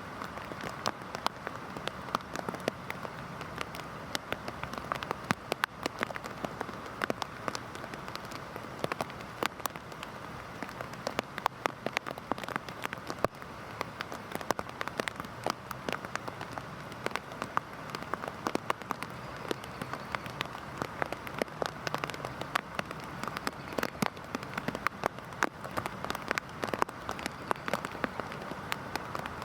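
Heavy rain falling steadily: a continuous hiss with many sharp, close drop impacts ticking irregularly on a hard surface.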